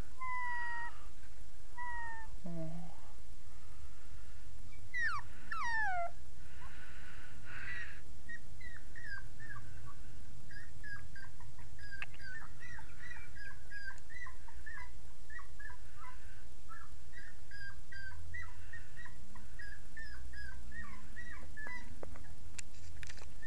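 Young puppies whining and whimpering: high, falling whines in the first few seconds, two long downward whines about five seconds in, then a long run of short squeaky whimpers, over a steady low rumble.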